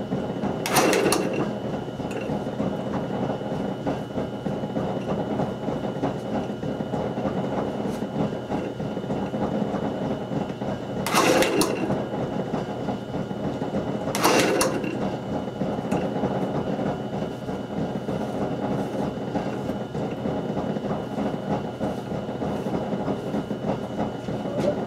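Craftex wood lathe running at reduced speed, spinning a spindle blank with square sections: a steady mechanical hum and whir. Three brief, louder bursts of scraping noise stand out, about a second in and twice more around the middle, while a pencil is held to the turning wood to mark lines.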